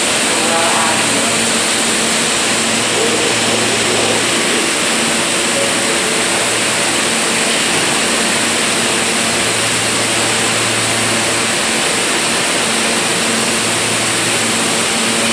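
R160A subway train standing at a station platform with its doors shut, its onboard equipment giving a steady loud rushing noise with a low hum that comes and goes.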